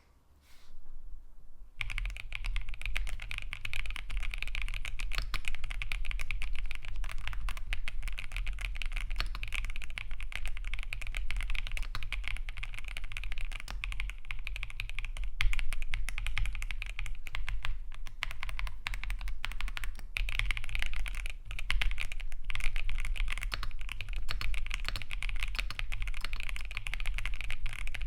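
Typing on a Cidoo V65, a gasket-mount mechanical keyboard with an aluminium case, linear Quark Matte switches and PBT keycaps. Fast, steady, continuous keystrokes start about two seconds in.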